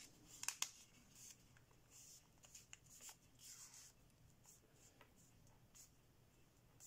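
Faint rustling and crinkling of thin kami origami paper being folded and pressed by hand, with a few sharper crackles about half a second in.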